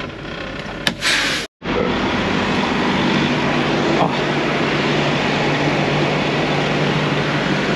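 A semi truck's diesel engine idling steadily with a low hum, heard outside the cab. About a second in there is a click and a brief hiss as the cab door opens.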